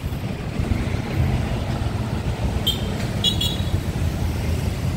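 City road traffic: a steady low rumble of passing cars and motorbikes, with a few short high chirps about halfway through.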